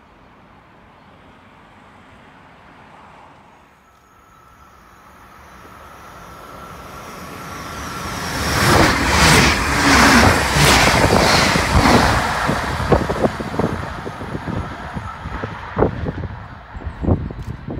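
An electric train passing close by at speed: its rush of noise swells to its loudest about nine to twelve seconds in, then falls away with a run of sharp wheel clacks.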